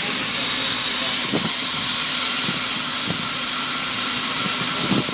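Compressed air hissing steadily and loudly from a pipe-lining machine fed by air hoses.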